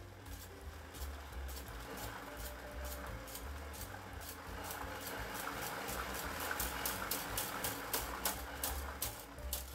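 Motorised 3D-printed filament respooler running up from a slow start: an electric gear motor driving plastic gears and a spool, with a run of ticks that come faster and closer together toward the end as the speed is turned up.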